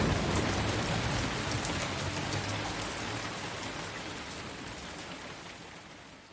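Steady rain falling, fading out gradually, with a low rumble dying away in the first few seconds.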